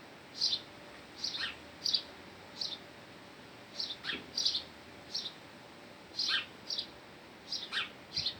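Small songbird chirping: short, high chirps repeated irregularly, about one or two a second, some sliding down in pitch.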